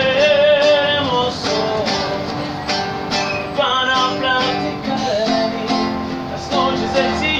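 A young man singing a song in a clear, full voice, his held notes wavering, over a strummed acoustic guitar.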